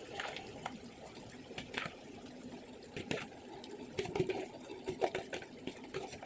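Curd-marinated chicken being tipped and spooned into a kadai of softened onion and tomato: wet pouring and slopping, with irregular knocks of the spoon against the bowl and pan.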